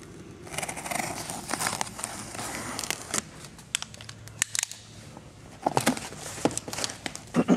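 Utility knife slitting the packing tape on a cardboard shipping box, then the cardboard flaps folded open and crumpled kraft packing paper rustling: scratchy crackling with many sharp clicks. A brief, louder falling pitched sound comes right at the end.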